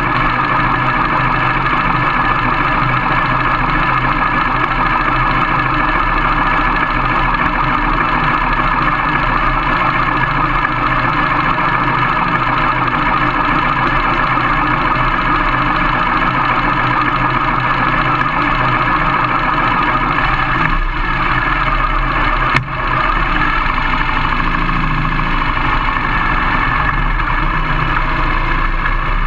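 Harley-Davidson Sportster V-twin engine of a dual-sport motorcycle running steadily, with one sharp click about three quarters of the way through.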